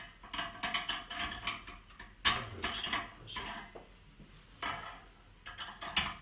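Clinks and knocks of metal kitchenware being handled: a stainless steel cream siphon being filled, closed and set into its metal wire stand, with a sharp knock about two seconds in and another near the end.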